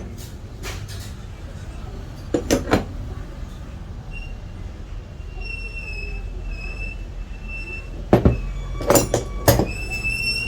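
Metal parts and tools clinking and knocking during work on a Makita angle grinder, in a few short clusters over a steady low hum. A faint thin high whine comes in about halfway through and holds.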